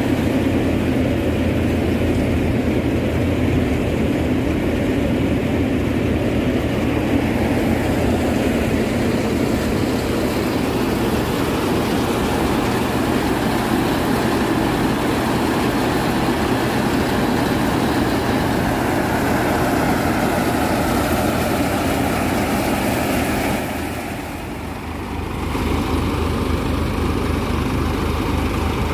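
Tractor-driven multi-crop basket thresher running steadily while threshing: the Farmtrac 45 tractor engine turning the thresher through the PTO under load, with the drum and fans whirring together. The sound drops briefly about three-quarters of the way through, then comes back with a slightly different low hum.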